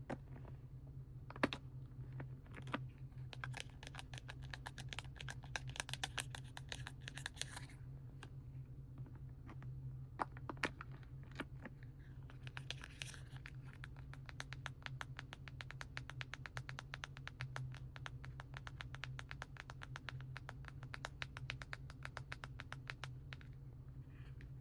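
Fingernails tapping and scratching rapidly on plastic paint packaging: two long runs of quick, light taps at about ten a second, with a few separate clicks near the start. A faint steady low hum lies underneath.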